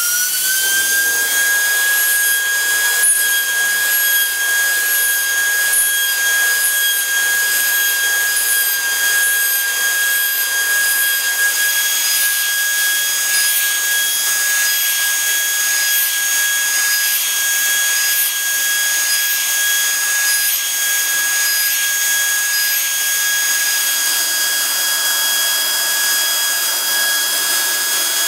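BIAX TVD 3-100/2 oil-free pneumatic high-speed grinder running at about 100,000 rpm with a carbide burr deburring metal edges. It climbs to a steady, high-pitched whine within the first second, with air hiss over it.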